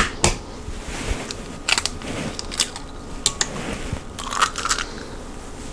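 A hen's egg cracked open over a stainless-steel mixing bowl: a couple of sharp taps near the start, then scattered crackles and crunches of the shell as it is broken apart.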